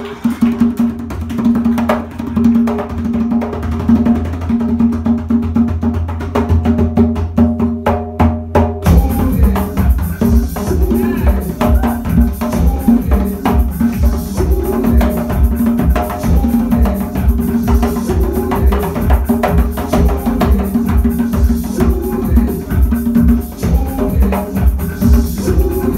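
Live band music led by percussion: a rhythmic groove with a bass line, then about nine seconds in the full band comes in with a steady driving drum beat.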